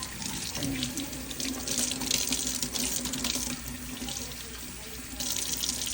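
Kitchen faucet running into the sink as asparagus spears are rinsed under it. The flow softens a little past the middle and picks up again near the end.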